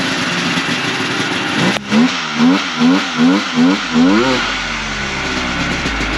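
A 1997 Polaris XC 600 triple two-stroke snowmobile engine being blipped. A sharp click comes first, then about six quick rises and falls in revs, roughly two a second, before the engine settles to a steady idle.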